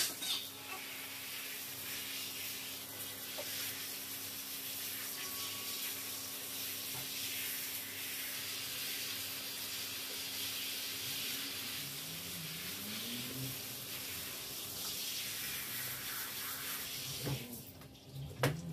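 Handheld shower sprayer running steadily, water hissing as it sprays onto a small dog during a bath, then shutting off near the end.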